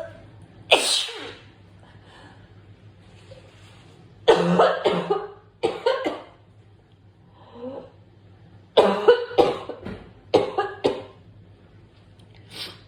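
A person coughing in several short bouts of two or three coughs each, part of a sneezing and coughing fit, with a sharp hissing burst of breath about a second in.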